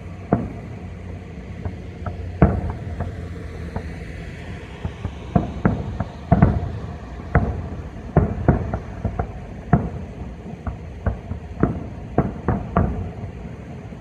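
Aerial firework shells bursting one after another: a long irregular string of sharp booms and bangs, coming thicker and faster in the second half, over a low rumble.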